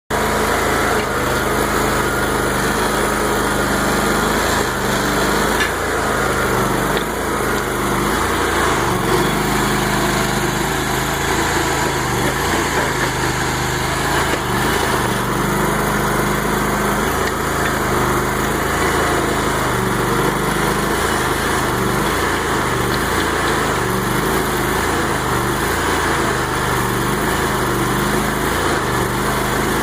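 Small engine of a Terramite compact backhoe running steadily while it digs, its pitch dipping and recovering now and then as it comes under load, with a few short knocks.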